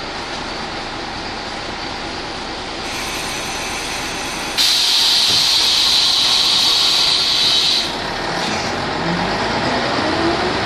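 Inside an Ikarus 280 articulated bus, a loud hiss of compressed air from its pneumatic system runs for about three seconds midway. Near the end the Rába D10 diesel engine's pitch rises steadily as the bus accelerates.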